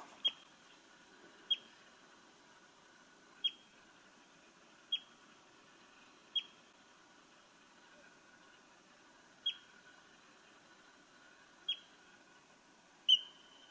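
American pikas calling: short, high-pitched squeaks, each a quick downward chirp, about eight in all at irregular gaps of one to three seconds, the last one near the end the loudest.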